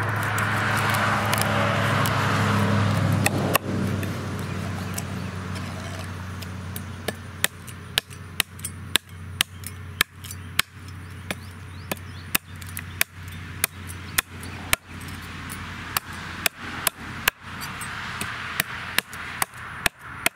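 A meat cleaver chopping through paddlefish flesh and bone onto a wooden cutting board: sharp chops about one to two a second, starting about seven seconds in. Before that, a passing vehicle's steady hum fades out over the first few seconds.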